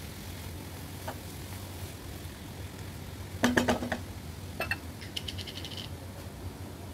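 Silicone spatula stirring food in a nonstick frying pan, knocking against the pan in a quick cluster about halfway through and once more a second later, over a steady low hum. Near the end a short rapid run of high ticks follows.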